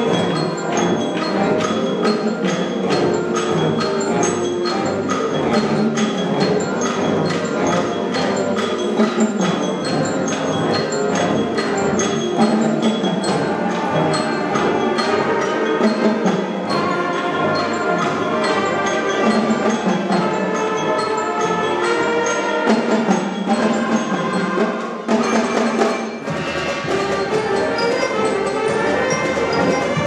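Middle school concert band playing a piece, clarinets and flutes to the fore, over a steady ticking percussion beat. The music dips briefly near the end before carrying on.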